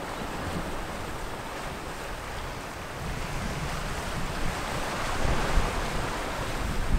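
Small sea waves washing against a rocky shoreline, with wind buffeting the microphone in an uneven low rumble.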